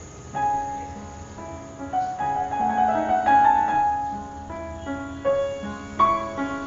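Background piano music, a melody of separate sustained notes.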